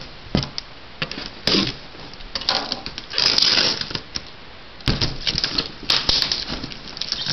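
Cardboard box and packaging being handled and opened: irregular clicks and taps with short bursts of rustling, the longest about three seconds in.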